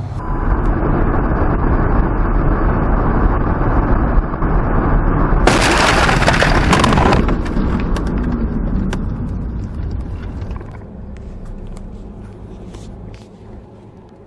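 Loud rushing noise of a car at speed. About five and a half seconds in comes a sudden loud crash lasting over a second as the windshield is struck and shatters. Scattered clicks and ticks of breaking glass follow as the noise dies down.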